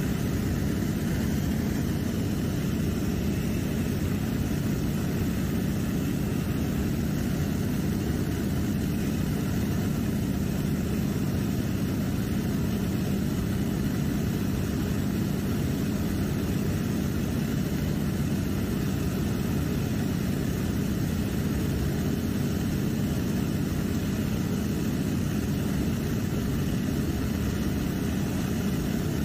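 Seaplane's propeller engine droning steadily in flight, heard from inside the cabin: a constant deep hum with no change in pitch or level.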